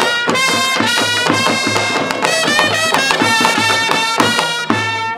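Lively instrumental music: a wind-instrument melody of quick, changing notes over a steady low beat.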